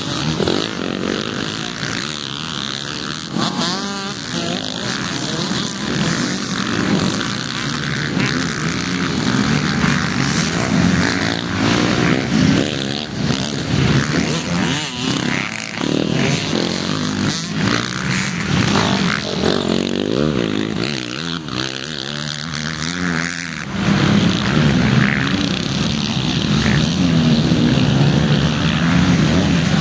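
Several motocross bikes' engines revving hard and easing off as the bikes come over a rise on a dirt track and pass, with the engine pitch rising and falling. The engines go on from further round the circuit and grow louder for the last few seconds.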